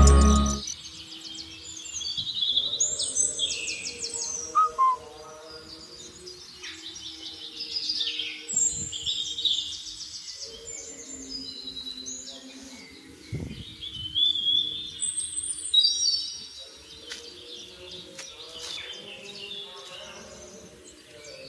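Music stops abruptly about half a second in, leaving birds chirping and twittering, many short overlapping calls, over a faint steady low hum.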